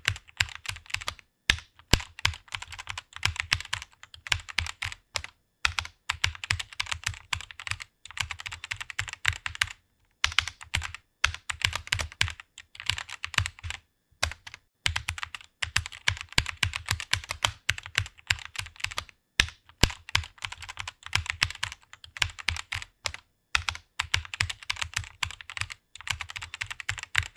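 Rapid typing on a computer keyboard, quick key clicks coming in runs of a few seconds at a time with brief pauses between words or phrases.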